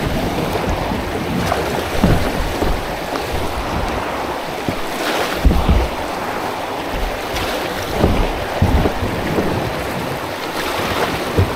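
River water moving and splashing around a kayak, with wind buffeting the microphone in uneven low gusts.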